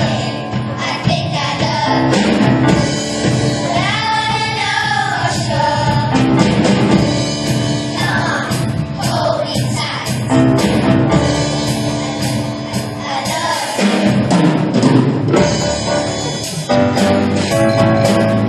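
Music with a singing voice over drums, playing without a break.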